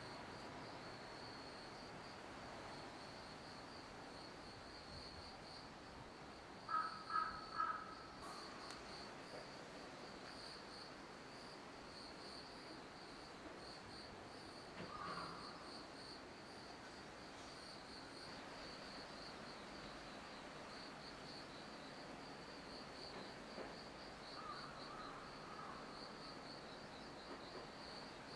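Insects chirping steadily in a faint outdoor soundscape. A bird calls three times about seven seconds in, and more faintly twice later.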